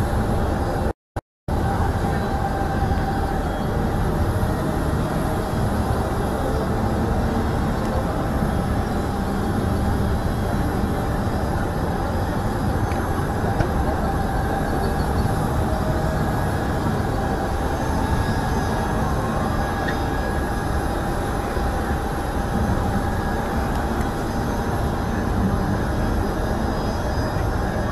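Steady low rumble of open-air airfield noise with a faint steady whine from distant taxiing aircraft engines. The sound cuts out completely for a moment about a second in.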